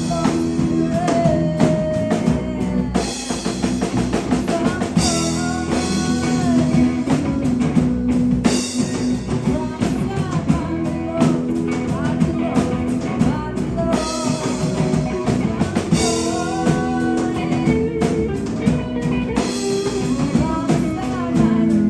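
Live rock band playing: drum kit, electric guitars and bass, with a lead line bending in pitch over a steady beat.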